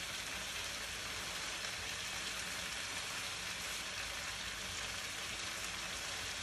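Sauced noodles, shrimp and vegetables sizzling steadily in a hot wok on a gas burner.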